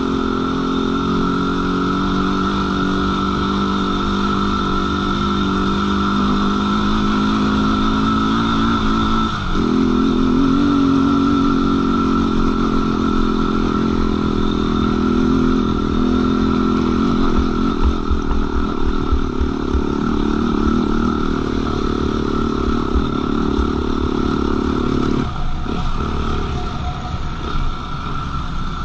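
Suzuki LTR 450 quad's single-cylinder four-stroke engine running under throttle while riding on sand. The engine note dips briefly about nine seconds in, then carries on, and falls away a few seconds before the end.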